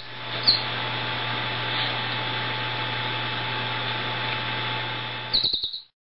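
Canary chirping: one short chirp about half a second in, then a quick run of about five chirps near the end, over a steady background hum. The sound cuts to silence just before the end.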